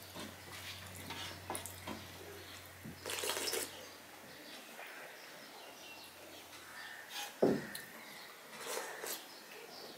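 Eating sounds: fingers squishing through dal in a steel plate, then slurping the dal straight from the raised plate, with a short sharp thump about seven and a half seconds in.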